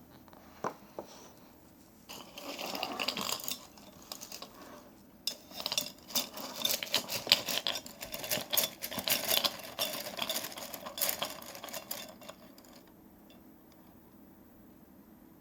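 Small hard objects rattling and clinking: two single clicks near the start, a softer rustle around two to four seconds in, then a dense run of rapid clicks and rattles from about five seconds in that stops about three seconds before the end.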